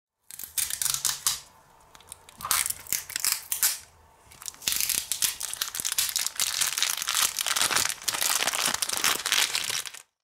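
Thin clear plastic bag crinkling and rustling as fingers handle and pull it open to get at small plastic toy pieces. It comes in bursts, with two short lulls in the first half.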